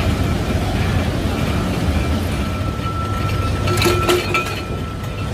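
Forge-shop machinery running with a steady low rumble as a red-hot leaf-spring blank is worked. About four seconds in there is a quick cluster of metallic clanks as the hot steel is set and struck under a press.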